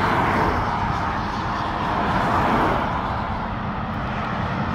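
Steady motorway traffic noise: tyres and engines of lorries and cars going past on the M20, swelling slightly about halfway through.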